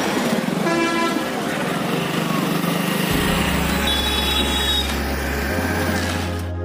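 Street traffic noise with a vehicle horn honking briefly about a second in. Background music with sustained low notes comes in about halfway through.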